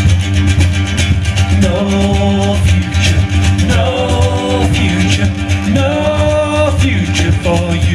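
A live acoustic folk band playing an instrumental passage: a steady strummed rhythm with a bass line, and a melody played in short phrases over it.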